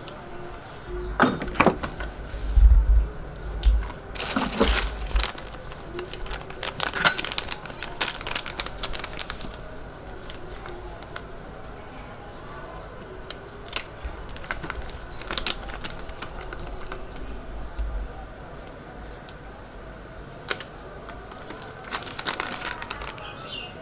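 Handling noises: scattered clicks, knocks and rustles as tool parts and packaging are handled, with heavier thumps in the first few seconds. No tool motor is heard running.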